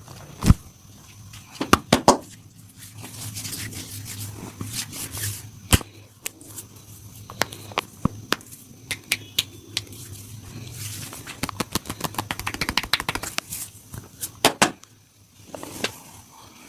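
Hands massaging a person's upper body: sharp slaps and claps on the skin and rubbing strokes, with a fast run of rapid taps in the second half. A faint steady hum lies beneath.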